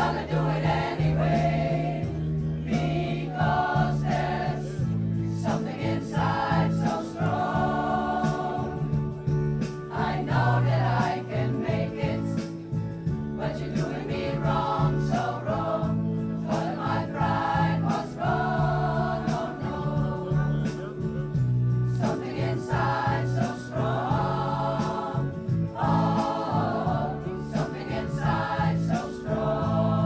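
Women's pop choir singing a song together over a low, held accompaniment whose notes change every few seconds.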